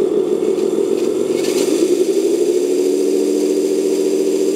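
RC crawler's electric motor and four-speed gearbox whining as the wheels spin off the ground in third speed. A brief rasp comes about one and a half seconds in, and after it the whine holds a steady pitch.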